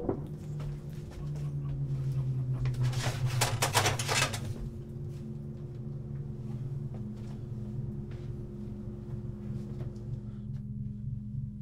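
A low steady drone, with a burst of clattering, like cookware or cupboard items being handled, about three to four seconds in.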